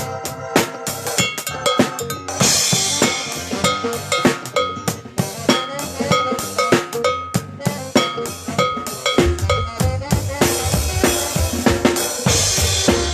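A live band playing at a sound check: a drum kit and percussion in a busy, fast rhythm with cymbal crashes, and a deep bass coming in about nine seconds in.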